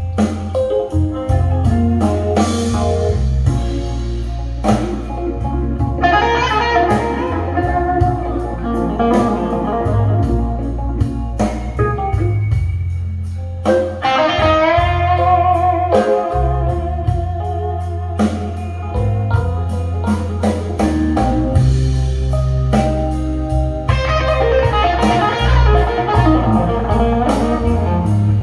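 Recorded blues music with electric guitar lines over bass and drums, played back through hi-fi loudspeakers for a sound test.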